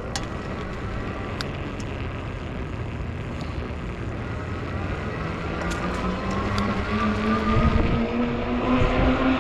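Ecotric 20-inch folding fat-tire e-bike riding on pavement, with wind and road noise on the microphone. From about halfway through, a whine rises slowly in pitch and grows louder as the bike picks up speed.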